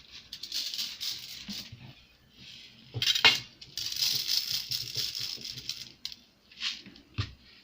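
Handmade rain sound effect: a rattle of small hard pieces shaken to imitate rain, rattling and pattering in several bursts, with a sharp knock about three seconds in.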